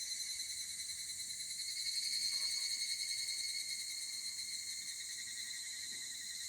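Higurashi (evening cicadas, Tanna japonensis) calling in chorus: a rapid, shimmering pulsed trill high in pitch, swelling a little about two seconds in.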